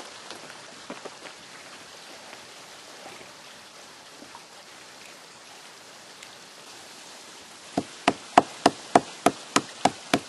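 A hand-held tool pecking into a rock slab to carve a petroglyph: rapid, evenly spaced sharp strikes, about three a second, starting near the end. Before that there is only a faint steady hiss with a few soft clicks.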